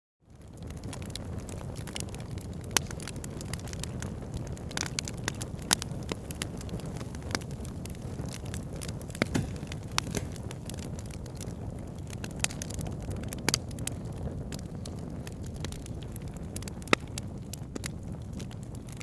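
Fireplace fire burning: a steady low rumble of flames with irregular sharp crackles and pops. It fades in from a brief moment of silence at the very start.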